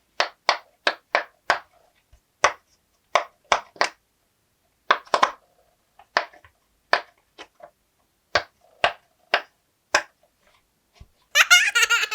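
A series of short, sharp taps or clicks, about twenty of them, spaced irregularly, from hands handling toys. Near the end a ringing, bell-like sound starts.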